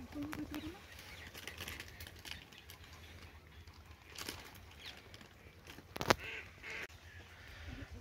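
Scattered, faint calls of waterbirds over a wetland, short and irregular, with a sharp click about six seconds in.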